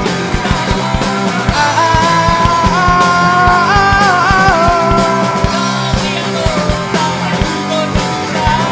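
Live rock band playing loud: electric guitars, bass and a drum kit at a fast, driving beat, with a held melodic line that bends in pitch a few seconds in.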